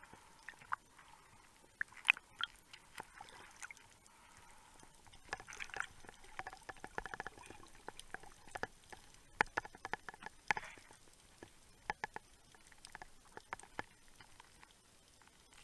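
Underwater sound picked up through a camera housing: irregular sharp clicks and knocks, a few of them loud, with short muffled swishes of water.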